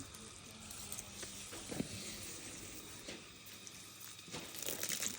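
Water spray hissing and pattering, with a few short splashes, growing louder near the end.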